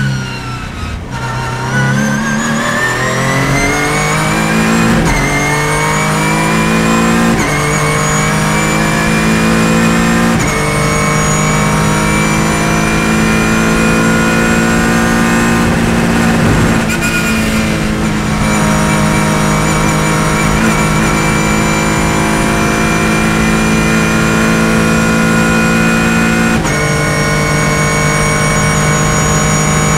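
Ligier JS2 R race car's Ford V6 engine heard from inside the cockpit: it slows with a falling pitch, then revs up hard in a long rising whine. It upshifts about 5, 7 and 10 seconds in, holds a steady high-speed drone at full throttle, and shifts up once more near the end.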